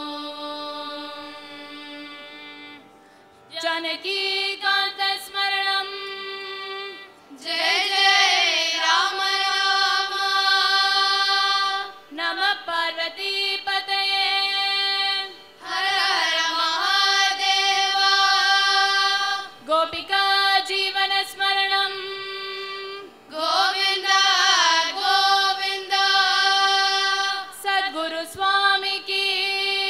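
A group of schoolchildren, mostly girls, singing a Carnatic devotional bhajan together, in phrases of long held notes with sliding, wavering ornaments, separated by short pauses.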